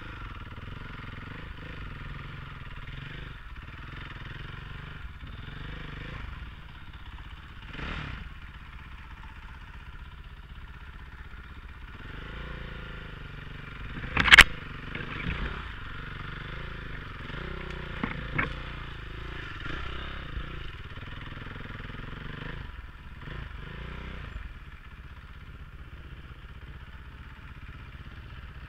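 KTM 500 dirt bike's single-cylinder four-stroke engine running steadily at trail pace. About halfway through comes a sharp, loud crack as branches strike the helmet camera, followed by a few smaller knocks.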